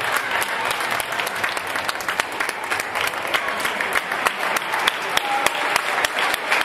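Spectators clapping and applauding steadily, many hands at once.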